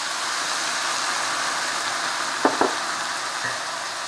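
Chicken breast and diced vegetables sizzling steadily in a hot frying pan as red wine is poured in. Two quick light knocks come about two and a half seconds in.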